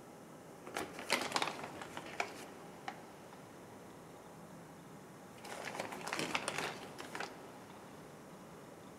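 Metal spoon clicking and scraping as leftover salt koji is spooned onto sliced chicken on a ceramic plate, in two short bursts of quick clicks a few seconds apart.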